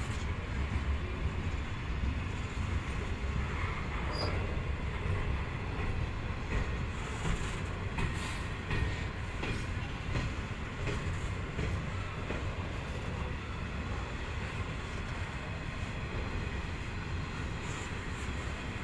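Grain hopper wagons of a freight train rolling steadily past: a continuous low rumble of steel wheels on rail, with scattered clicks and knocks over the rail joints and a faint wheel squeal now and then.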